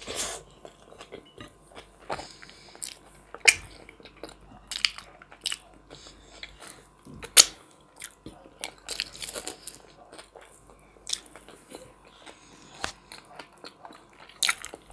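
A person chewing and biting into a lavash wrap with salad and pan-fried chicken thigh, with irregular sharp mouth clicks, the loudest about three and a half and seven seconds in.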